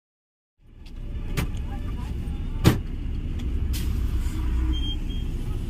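Bus engine running, heard from inside the bus by the open front door, cutting in suddenly about half a second in. Two sharp clicks or knocks stand out over the rumble, the louder one a little past halfway.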